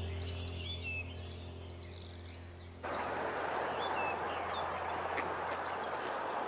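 Small birds chirping in short high notes over a low steady drone; about three seconds in, a sudden cut brings in a steady rush of flowing water, the chirping going on above it.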